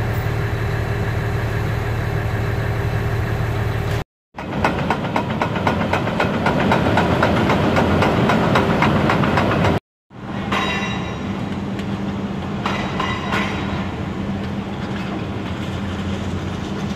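Demolition machinery: diesel hydraulic excavators running with a steady engine drone. In the middle stretch, between two abrupt cuts, a dense rapid clatter of concrete and metal debris being broken and dragged. After the second cut, a steady drone with a few clanks.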